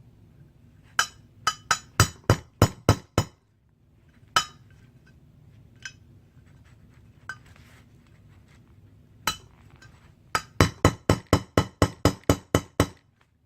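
A hammer tapping a pin into the trigger guard hole of an AR-15 lower receiver with sharp metallic clinks. There is a run of about eight strikes, a few single taps, then a faster run of about a dozen strikes at about five a second near the end. The pin is a tight fit, which the owner feels is too big for the hole.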